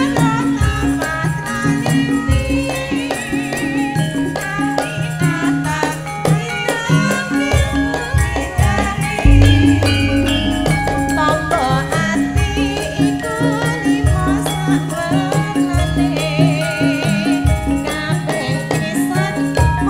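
Live campursari music: a woman sings with a wavering vibrato over a gamelan and drum ensemble keeping a steady, even beat, with heavy bass notes.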